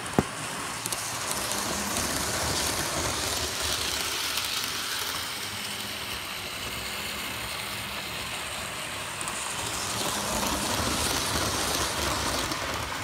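OO gauge model trains running on the layout: a steady whirr and rattle of small motors and wheels on the track, with a single sharp click just after the start. It grows louder near the end as the Class 390 Pendolino model passes close by.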